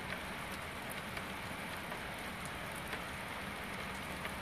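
Heavy rain pouring down and splashing on hard surfaces: a steady hiss with many small drop ticks.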